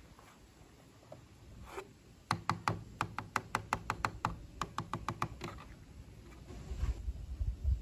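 Fingers tapping on a repaired plastic scooter rear mudguard: a quick run of sharp taps, about five a second for some three seconds, with a low thump near the end.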